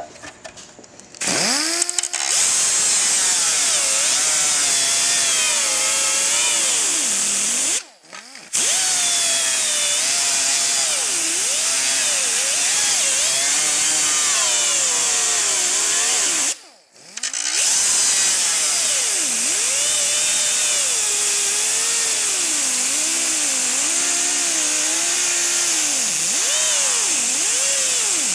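Right-angle die grinder with a small cutting wheel whining as it cuts through thick plastic, its pitch sagging and wavering as the wheel bites into the material. It starts about a second in and stops briefly twice, around eight and seventeen seconds in.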